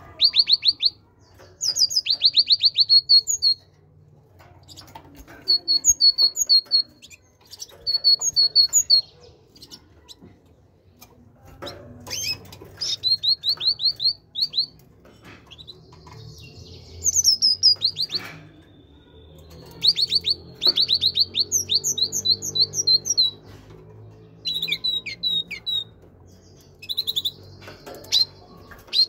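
Great tit singing: bursts of quick repeated high notes, some phrases built of two-note pairs, each burst one to two seconds long with short pauses between.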